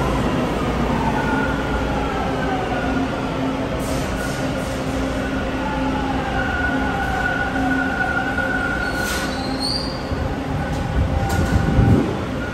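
Toronto subway train pulling into a station and braking to a stop: a heavy wheel rumble under an electric motor whine that glides in pitch as the train slows. A brief high wheel squeal comes about nine seconds in, and a low thump comes just before the end as the train stops.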